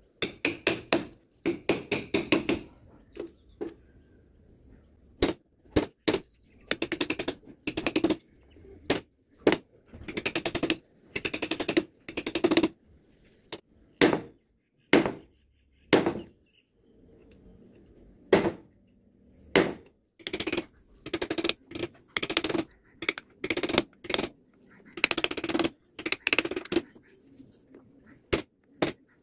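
Wood-carving chisel being struck into a block of wood with a mallet: groups of quick, sharp knocks, several in a row, broken by short pauses and some single strikes.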